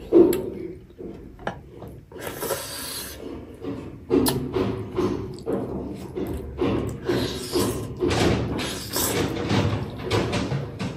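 Close-miked chewing: a person eating mouthfuls of rice and chicken, in a run of repeated short mouth sounds about twice a second.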